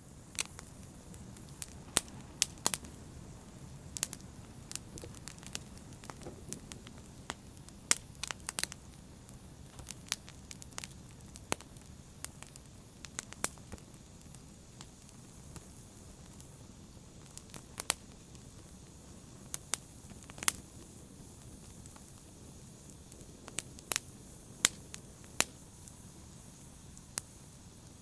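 Wood fire burning in a fireplace: a steady low rush of flames with irregular sharp crackles and pops, some much louder than others.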